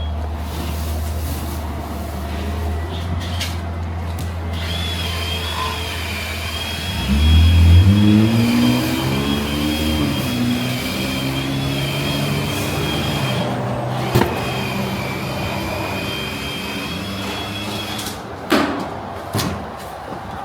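A car engine catches about seven seconds in, revs briefly with a rising pitch, then settles into a steady idle. A low rumble comes before it, and a couple of knocks come near the end.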